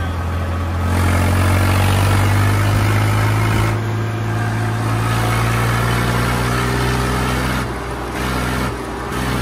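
Tractor engine running steadily under way, its note picking up about a second in and easing off briefly twice near the end.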